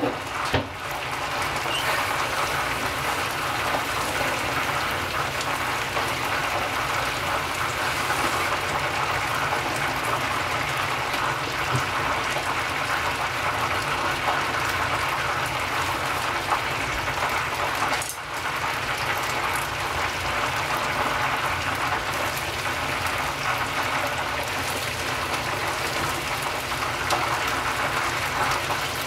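Chicken pieces for karaage deep-frying in hot oil in an iron pan, giving a steady, dense sizzle and crackle of bubbling oil.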